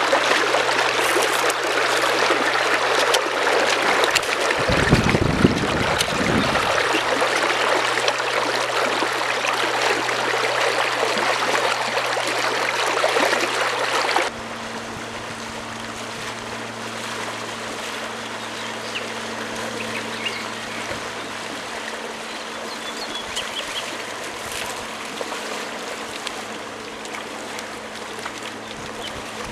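River water running over gravel close to the microphone, a loud, steady rush. About fourteen seconds in it cuts abruptly to a quieter, more distant rush of the river, with a brief low rumble about five seconds in.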